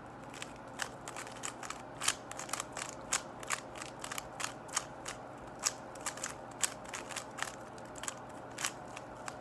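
MoYu Weilong GTS2 M 3x3 speedcube being turned quickly by hand: an irregular run of sharp plastic clicks, about three or four a second.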